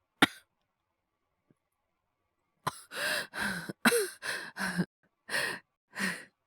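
A man's heavy, voiced breathing, acted as a sick, feverish man struggling for breath: one sharp breath right at the start, then after a pause of about two seconds a quick run of about eight short, sighing breaths.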